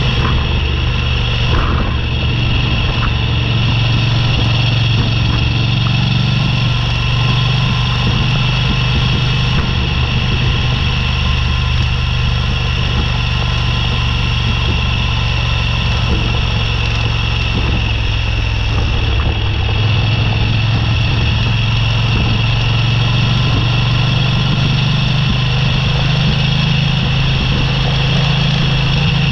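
Motorcycle engine running steadily at an unchanging pitch while riding, with a continuous hum and road noise under it.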